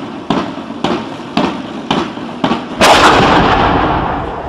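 Black-powder muzzle-loading cannon firing about three seconds in: one loud blast that rings on and fades over more than a second. Before it, sharp regular knocks come about twice a second.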